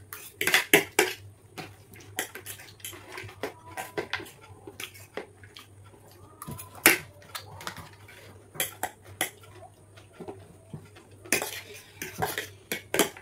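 Forks clinking and scraping against dinner plates while eating noodles. The sharp clicks come in bunches about half a second in and again near the end, with one loud clink about seven seconds in.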